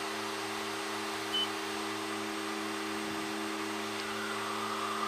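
Steady in-flight cockpit drone of a Fairchild Metro's twin turboprops: a hum with several fixed low tones over a hiss. A short high beep sounds about one and a half seconds in.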